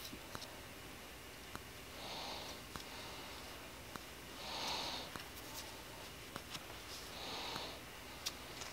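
A person breathing heavily through the nose three times, about every two and a half seconds, the middle breath loudest, with scattered faint clicks from the engine parts being handled.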